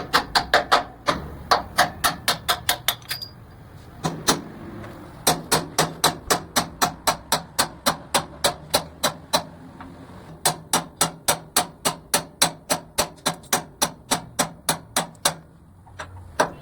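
A hammer striking steel leaf spring parts during truck leaf spring repair: rapid blows, about five a second, in runs broken by short pauses.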